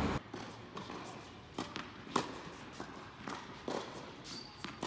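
Scattered sharp knocks and taps of tennis play on an indoor hard court: ball strikes, bounces and footsteps, coming at irregular intervals about every half second to a second.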